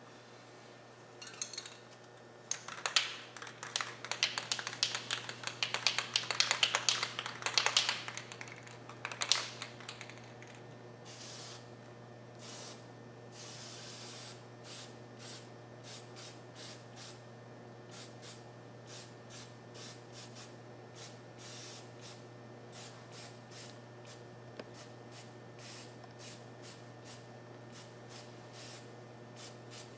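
Aerosol spray-paint can hissing in many short bursts, with one longer burst, as paint is sprayed through a bumper stencil. Before the spraying, several seconds of loud crackling and rattling.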